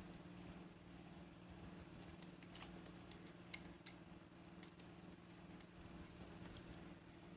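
Near silence: a steady low hum with a handful of faint, sharp clicks spread unevenly through the middle.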